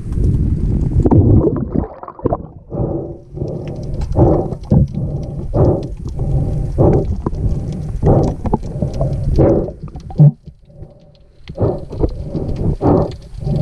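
Muffled underwater noise through a diving camera: rhythmic whooshing pulses about once a second, with one short, loud low knock about three-quarters of the way through.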